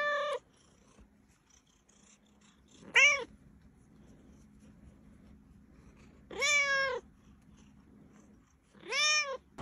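Tabby cat meowing: the tail of one meow at the start, then three more a few seconds apart, each rising and falling in pitch, the one about six and a half seconds in the longest.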